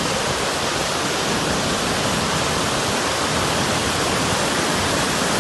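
Mountain waterfall pouring steadily: a dense, even rush of falling water with no breaks.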